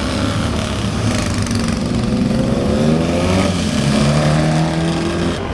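Several two-stroke racing scooter engines revving hard together, overlapping. Their pitch climbs as they accelerate about halfway through, then holds high.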